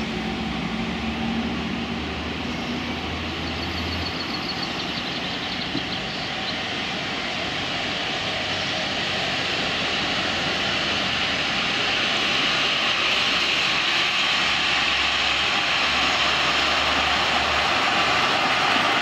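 A miniature railway train running on the track out of sight, coming closer and getting steadily louder.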